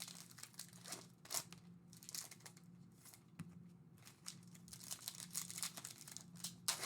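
Plastic trading-card packaging crinkling and tearing in short, irregular rustles as it is opened, over a faint steady hum.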